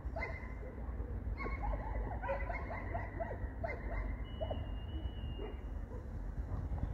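Repeated short calls from an animal over a steady low rumble, with a brief steady high tone about four seconds in.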